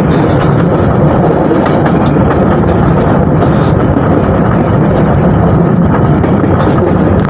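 Train running: a loud, steady rumble of wheels and carriage, with no breaks.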